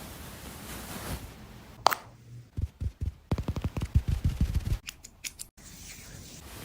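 Grooming scissors snipping a dog's fur: a single click, then a quick run of snips, then a few more sharp clicks.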